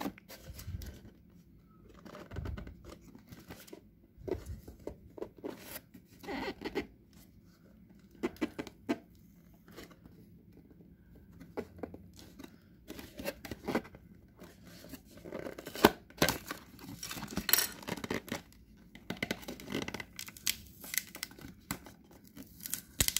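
Cardboard packaging handled by hand: a black box insert slid, flexed and pulled apart, giving irregular scrapes and rustles with scattered sharp clicks, the sharpest about 16 seconds in.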